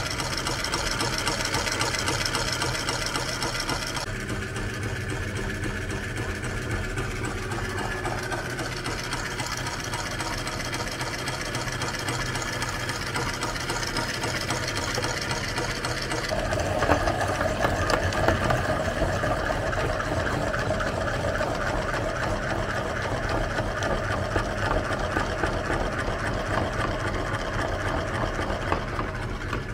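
Meat grinder running steadily, its auger turning, while ice-cream wafer sandwiches are ground through it. About halfway through the sound changes, with a stronger, louder middle tone.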